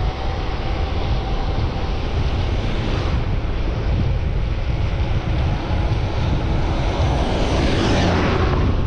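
Steady low rumble of wind buffeting the microphone, with a rushing noise that swells about eight seconds in.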